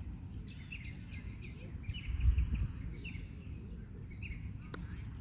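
Small birds chirping again and again over a low rumble of background noise that swells briefly about two seconds in. A single sharp click comes near the end.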